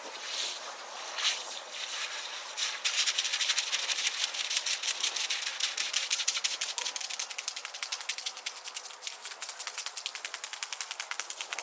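A hand-held percussion rattle shaken in a fast, even rhythm of clicks that starts about three seconds in, after a few scattered knocks.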